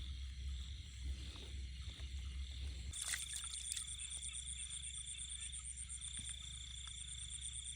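A high, steady pulsed trill of a calling animal starts about three seconds in, over a low steady rumble.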